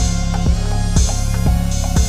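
Electronic background music with a steady drum beat, about two beats a second, over a held bass, with sweeping synth tones in the treble.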